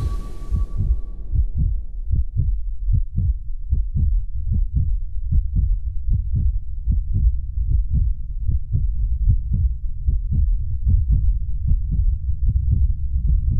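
Heartbeat sound effect: a steady run of low thuds, about two a second.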